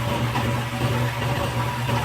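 Steady hum of running factory machinery: a constant low drone with a few faint, steady higher tones above it.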